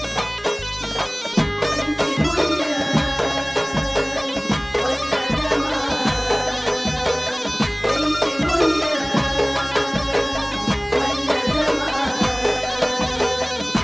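Instrumental passage of a Tunisian mezoued song: the mezoued bagpipe plays a reedy melody over a steady drum beat.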